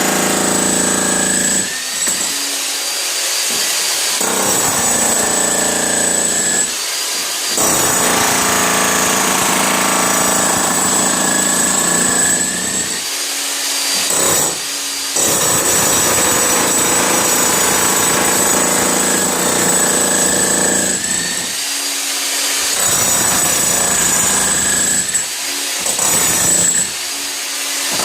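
Harbor Freight electric jackhammer hammering on concrete, breaking up a top layer. The pounding runs in long stretches and stops briefly several times while the tool keeps running.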